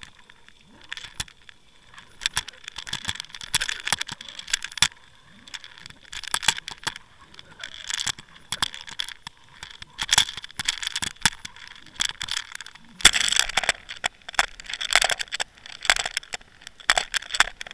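Dense underwater clicking and crackling picked up by a submerged camera, coming in clusters every second or so over a faint steady high tone. About thirteen seconds in, a fuller rush of water noise joins the clicks.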